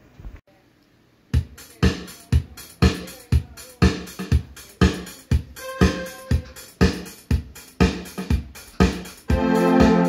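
Electronic keyboard played through a large PA speaker: after a brief pause, keyboard music starts about a second in with a steady beat of about two strikes a second under the chords. Near the end it changes to a sustained organ-like chord.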